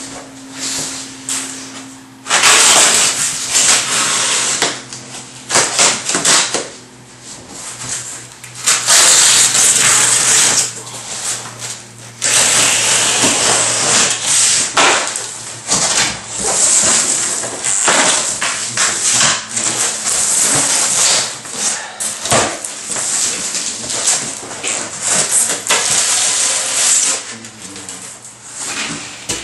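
Cardboard shipping box being torn open by hand: repeated rasping tears and rustling of packing tape, cardboard and packing material, in stretches of one to three seconds with occasional knocks.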